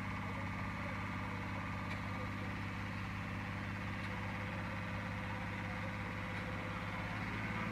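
Heavy diesel engine idling steadily with an even low hum.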